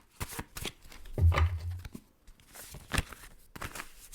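Playing cards being handled and shuffled by hand in irregular snaps and taps, with a dull low thump a little over a second in.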